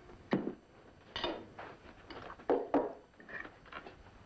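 A wooden dining chair being moved and sat in at a breakfast table, with china and cutlery clinking: a handful of short knocks and scrapes.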